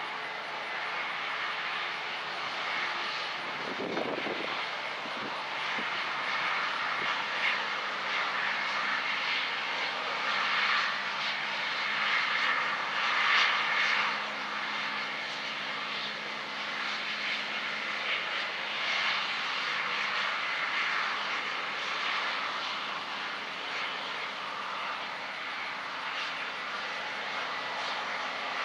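Diesel engine of large farm harvest machinery running steadily under load, with a continuous mechanical drone and a brief low surge about four seconds in.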